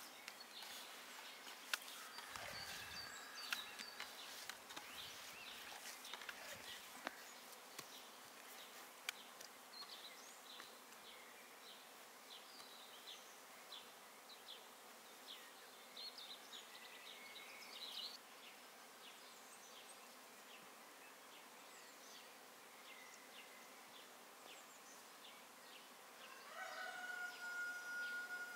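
Faint rural outdoor ambience: buzzing insects and scattered bird chirps, with a few light clicks and taps.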